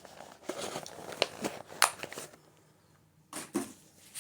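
Close-up handling noises: several sharp clicks and rustles in the first two seconds, then a short burst of noise a little after three seconds.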